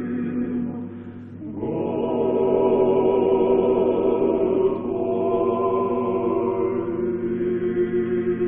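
Male vocal quartet of two tenors, a baritone and a bass singing a cappella in long held chords. A phrase fades about a second in, then a new, louder chord swells in and is held, shifting to another chord about halfway through.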